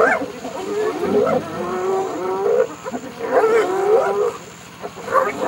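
Hyenas and lions calling during a clash: a run of wavering, moaning calls broken by short yelps that rise sharply in pitch. There is a brief lull a little before the end.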